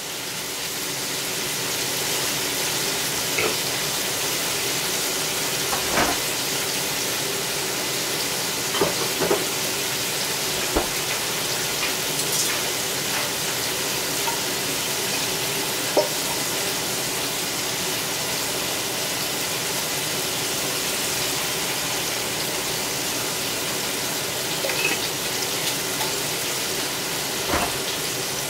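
Breaded green tomato slices sizzling steadily in hot frying oil in a pan, with a few light clicks scattered through it.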